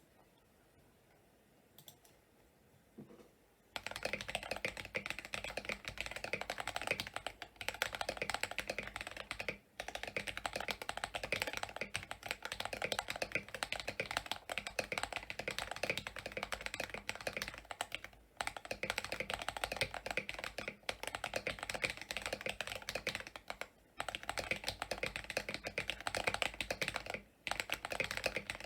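Fast typing on a CIY68 mechanical keyboard fitted with Akko CS Lavender Purple switches and Epomaker Honey Milk keycaps: a dense run of key clicks, starting about four seconds in after a few faint taps, with several short pauses.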